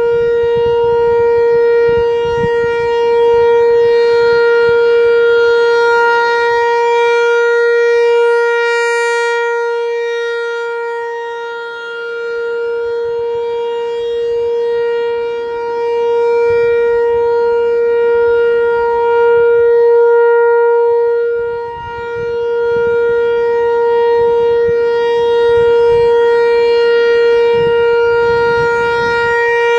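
American Signal T-128 outdoor warning siren sounding a steady tone for a monthly test. Its loudness swells and fades about every ten seconds as it rotates.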